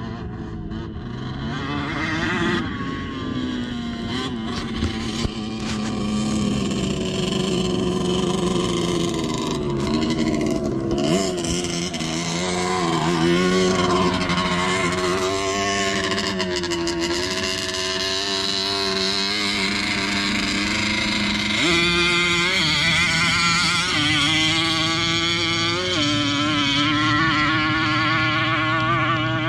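ATV and dirt bike engines running and revving, their pitch rising and falling over and over.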